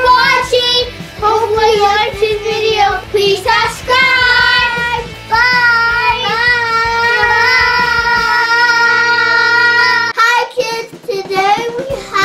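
Children singing over backing music, holding one long wavering note from about four seconds in; the backing music drops out near the end.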